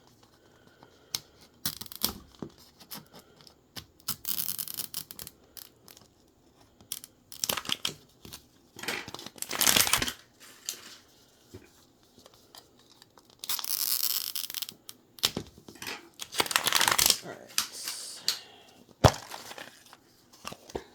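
Plastic wrapping of toy capsules being torn and crinkled open in several separate bursts, with one sharp click near the end.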